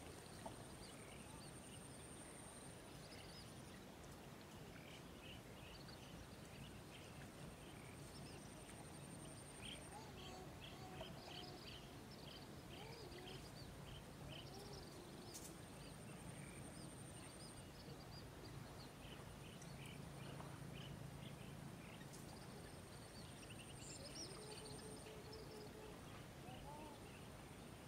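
Faint outdoor ambience: small birds chirping in short runs of quick notes, over a thin high steady tone that comes and goes.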